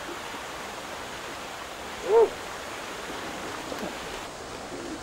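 Steady outdoor background noise, with one short, loud pitched call that rises and falls about two seconds in, and a few faint clicks later on.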